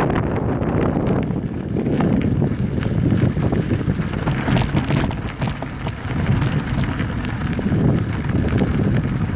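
Wind buffeting the microphone during an off-road ride on an electric trail bike, over a steady low rumble from the tyres on the dirt trail, with many scattered clicks and knocks from stones and rattling bike parts.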